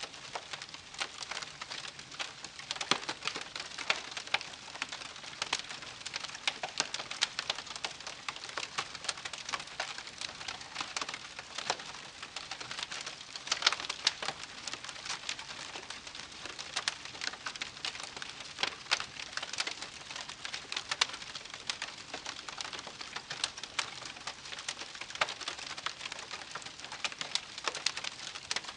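Wood campfire crackling: a steady stream of irregular sharp pops and snaps over a soft hiss.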